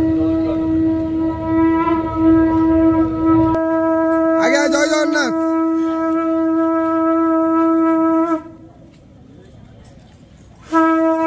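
Conch shell (shankha) blown in one long, steady, unwavering note, sounded for a temple gate-opening ritual. A brief warbling cry rises and falls over it about four and a half seconds in. The blast stops about eight seconds in, and a new blast starts just before the end.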